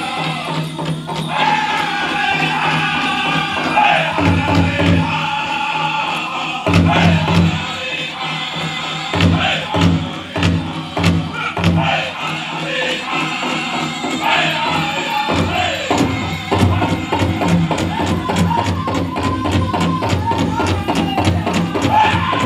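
Powwow drum group singing a chicken dance song: several men chanting in unison over a steady beat on a shared bass drum.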